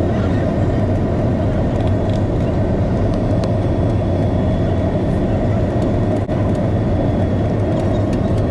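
Jet airliner cabin noise on the descent to land: steady engine and airflow noise heard from a window seat, with a faint high whine over it.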